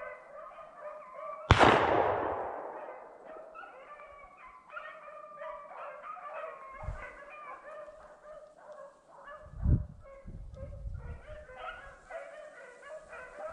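A pack of rabbit-hunting dogs baying steadily as they run a rabbit's trail. A single loud gunshot cracks about a second and a half in and echoes away.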